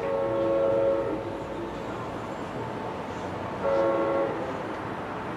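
Air horn of an approaching NJ Transit GP40PH-2B diesel locomotive sounding a multi-note chord: a blast of about a second at the start and a shorter one nearly four seconds in.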